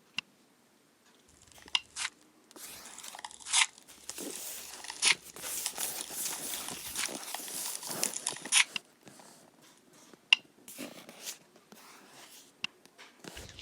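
Slime being squeezed and worked by hand, with sharp clicks and pops and a dense crackling stretch in the middle, thinning out to scattered pops near the end.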